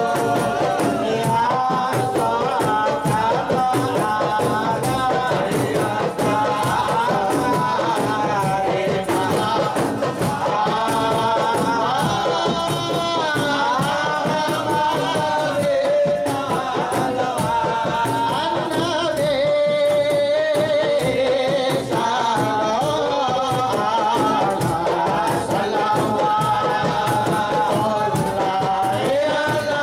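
A group of men singing Rifa'i devotional chants together over steady, rapid beating on hand-held frame drums.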